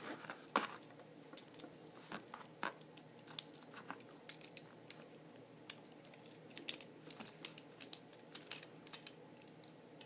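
Light clicks and taps of small metal and plastic Beyblade parts (face bolt, wheels, track and tip) as they are fitted together by hand, coming irregularly, several a second.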